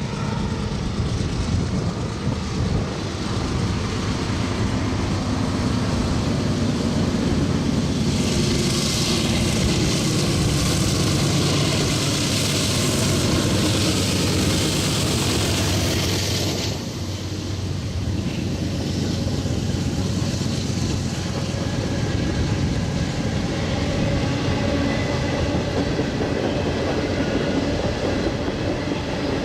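Norfolk Southern freight train's diesel locomotives working under load as the train pulls out, a steady low engine sound. About eight seconds in a loud hiss joins it and cuts off suddenly some nine seconds later.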